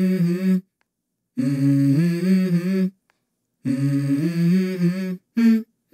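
Background music: a wordless hummed vocal melody, held notes stepping in pitch, in short phrases broken by dead silences.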